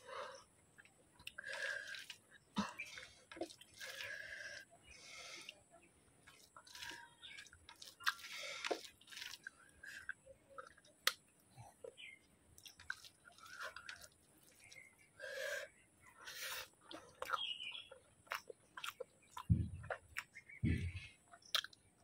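Close-up chewing and wet mouth sounds of a person eating rice and vegetable curry, with irregular small clicks and smacks. Two soft low thumps near the end.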